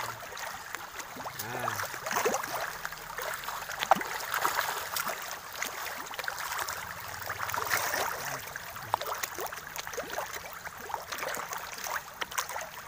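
Many pond fish thrashing at the water's surface: continuous busy splashing and gurgling, with sharp slaps of water, one louder slap about four seconds in.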